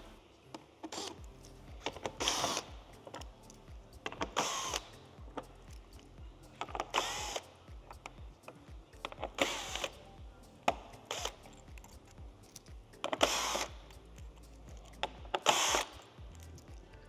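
A socket tool undoing the 10 mm nuts along the underside of a car's front bumper, in about six short bursts a couple of seconds apart. Background music plays underneath.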